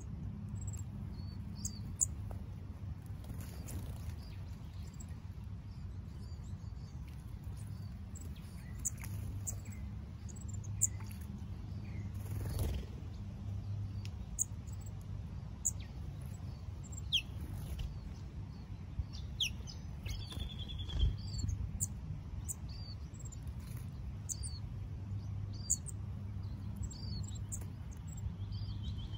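Small birds chirping: scattered short, high chirps and a few quick falling calls, with a brief trill about twenty seconds in, over a steady low hum.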